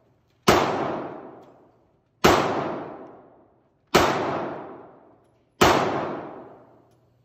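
Four pistol shots fired at an even, unhurried pace, about one every 1.7 seconds, each with a long echoing tail off the walls of an indoor range.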